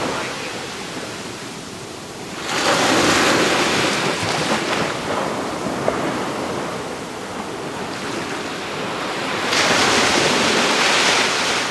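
Ocean surf breaking and washing up the beach, with loud surges about two and a half seconds in and again near the end.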